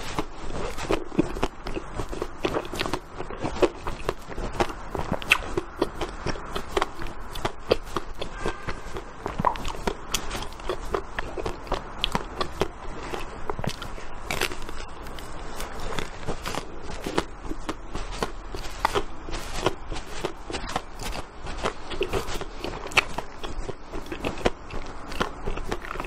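Close-miked biting and chewing of a frozen ice cream bar on a stick: dense crunchy crackling with many sharp clicks, several a second.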